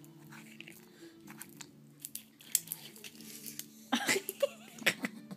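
Peanut shells crunching and crackling as a pet noses through and bites at a pile of peanuts in a plastic bowl, with scattered sharp clicks that get louder about four seconds in.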